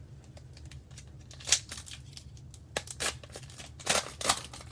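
A trading-card pack's plastic wrapper being worked open by hand, with a run of short, sharp crinkles and rips as a stuck flap of the wrapper is pulled free.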